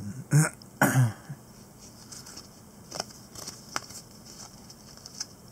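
Football trading cards being fanned and slid past one another by hand, with light rustling and a few sharp card flicks about three to four seconds in.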